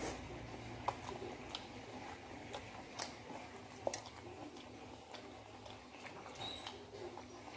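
Chewing and biting fried chicken: irregular soft crunches and mouth clicks.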